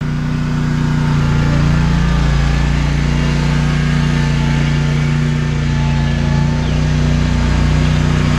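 Scag Tiger Cat zero-turn mower's 23-horsepower Kawasaki engine running steadily as the mower drives across the lawn.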